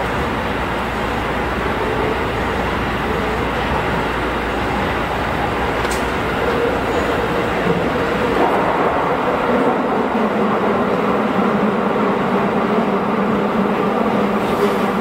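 Tokyo Metro 16000 series subway train running through a tunnel, heard from inside the driver's cab: a steady rumble of wheels on rail and tunnel noise. There is a single sharp click about six seconds in, and a low hum grows and rises slightly in pitch in the second half.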